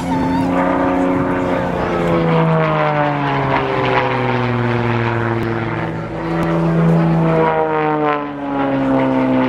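Extra 300S aerobatic plane's piston engine and propeller running at power during aerobatic manoeuvres, its pitch sliding down, back up and down again as the plane climbs, turns and passes.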